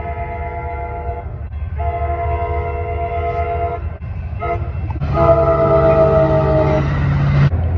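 Train air horn sounding several notes at once in the grade-crossing pattern, long, long, short, long, the last blast louder and dropping slightly in pitch, over the low rumble of the train.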